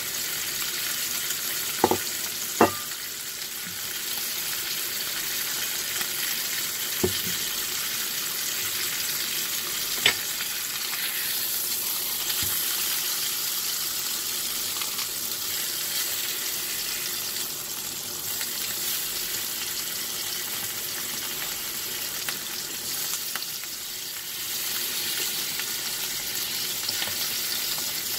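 Sous vide ribeye searing in butter in a frying pan, a steady sizzle. Four sharp clicks in the first ten seconds as long metal tweezers knock against the pan.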